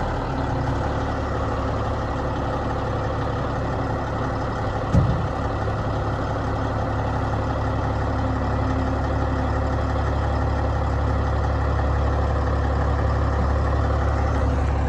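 2005 Peterbilt 357 dump truck's diesel engine idling steadily while the raised dump body lowers, with a single sharp clunk about five seconds in.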